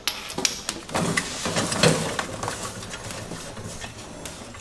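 A pressure-washer trailer's water-fill hose reel turning as its hose is pulled off by hand. A run of knocks and clicks comes in the first two seconds, then a quieter rubbing and rattle.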